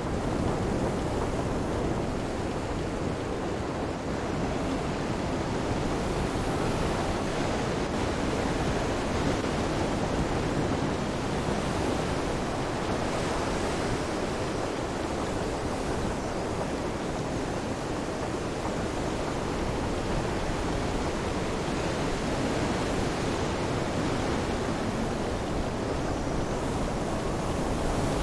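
Steady storm ambience: wind with rain and surf noise, even and unbroken.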